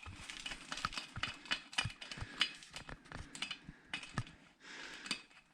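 Irregular light clicks and knocks of tools and parts being handled while working on an ATV tyre and valve.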